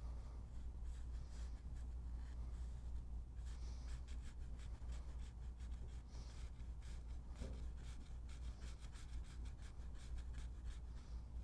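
Round watercolour brush stroking wet paint across textured paper: soft, scratchy brushing, in quick runs of strokes that grow busier in the second half, over a steady low hum.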